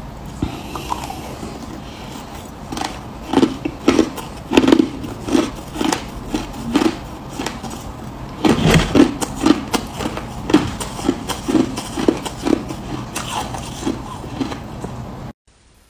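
Mouthfuls of crushed ice being bitten and chewed, a run of crisp crunches at about two a second. The loudest burst of crunching comes a little past the middle, as a fresh spoonful goes in. The sound cuts off abruptly just before the end.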